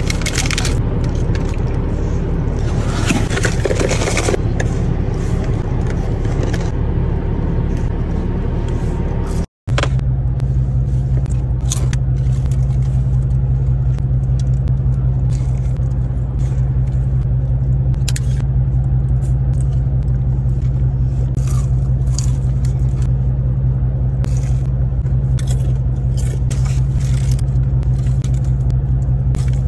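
Steady low hum of a car idling, heard inside the cabin, with scattered short crunches and foil-wrapper rustles from eating. The sound cuts out completely for a split second about ten seconds in, and the hum comes back deeper and stronger.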